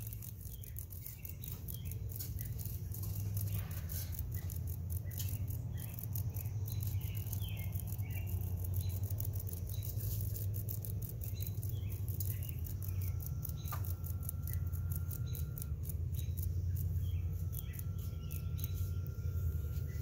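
Outdoor ambience: scattered short bird chirps over a low wind rumble on the microphone, with fine crackling clicks throughout. A faint steady high tone comes in twice in the second half.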